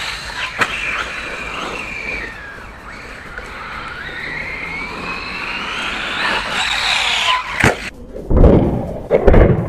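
Brushless motor of a VKAR Racing Bison V2 RC truggy, a 3670 motor on a 4S battery, whining as the throttle is worked, its pitch rising and falling. Near the end come two loud, rough bursts.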